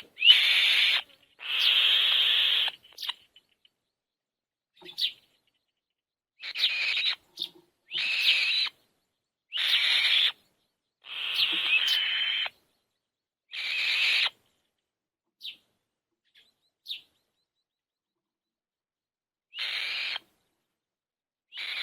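Young birds' begging calls: hissing bursts of about a second each, some eight of them, coming in runs with silent gaps between, including a long pause in the latter half.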